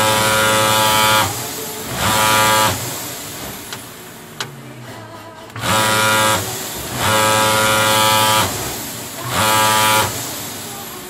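Industrial sewing machine stitching in short runs: its motor whine starts and stops five times, each run lasting about half a second to a second and a half. A longer pause comes midway, with two faint clicks in it.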